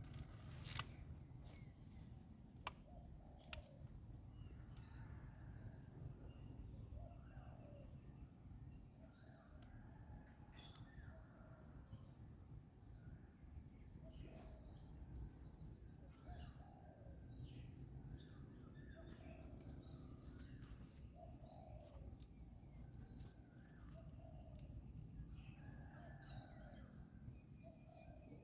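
Faint countryside ambience: birds giving short, scattered calls over a steady high-pitched drone, with a couple of sharp clicks in the first few seconds.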